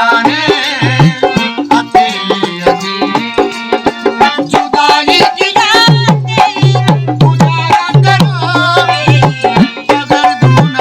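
Instrumental interlude of a rural folk ghazal: a hand drum keeps a steady rhythm, its bass strokes bending in pitch, under a held melody line.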